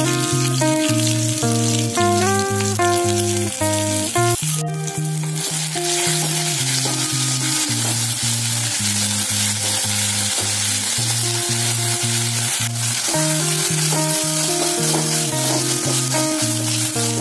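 Whole spices, garlic and onion sizzling as they fry in ghee in a steel pan, stirred with a wooden spatula. Background music with a stepping melody plays over it throughout.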